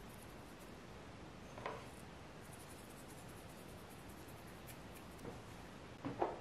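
Salt sprinkled by hand from the fingers onto hollowed zucchini halves: faint grainy rubbing, with a short soft scrape about a second and a half in and a louder brief one near the end.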